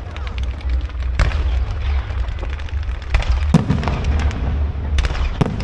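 Aerial fireworks: about five sharp bangs of shells bursting, two of them in quick succession near the middle and two more near the end, over a steady low rumble and fine crackling.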